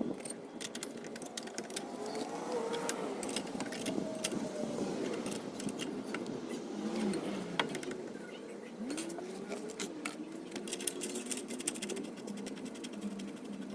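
Hand tools clicking and clinking against metal in quick, irregular ticks while a brake caliper and its bracket are bolted back on.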